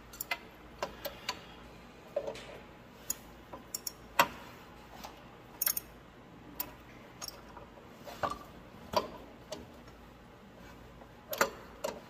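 Socket ratchet and a wrench working the gauge-wheel arm bolt and threaded bushing on a corn planter row unit: irregular metallic clicks and clinks, the loudest about four seconds in.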